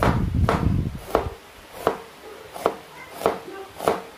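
Kitchen knife slicing a shallot on a wooden cutting board: about seven sharp knife strikes on the board, roughly one every two-thirds of a second.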